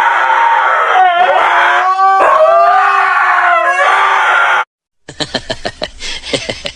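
A dog howling in one long, loud, sustained howl whose pitch wavers and glides, with brief breaks about one and two seconds in. It cuts off suddenly a little past halfway, and after a short silence a different scene begins with quick clicks and short sliding squeaks.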